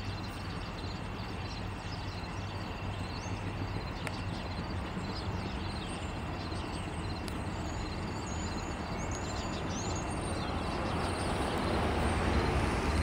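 EMD diesel freight locomotives rumbling with a steady low drone, growing louder toward the end as the train draws near.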